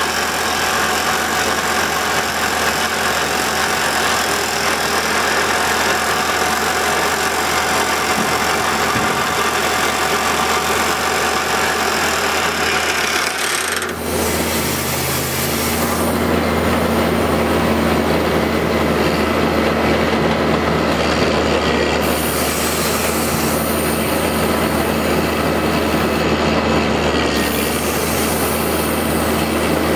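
Kaishan KL511 drilling rig at work: its Montabert HC170 hydraulic top-hammer rock drill hammers a drill rod into rock over the rig's running engine, a loud, continuous mechanical racket. About halfway through the sound changes abruptly, becoming deeper with a steady low hum underneath.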